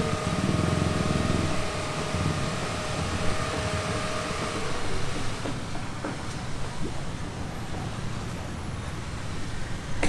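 Road traffic noise with a low vehicle engine rumble, strongest in the first couple of seconds and then settling to a steadier, quieter hum.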